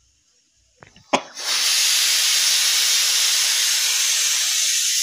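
Pressure cooker whistle going off: a couple of sharp clicks as the weight lifts about a second in, then a loud, steady hiss of steam escaping. The cooker has reached full pressure, and this is one of the whistles counted to time the cooking.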